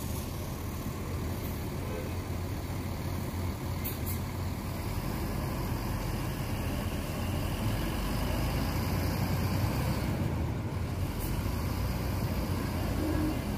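Diesel engine of a Bagong AC coach running as the bus pulls away at low speed, slowly getting louder, with a couple of brief high hisses.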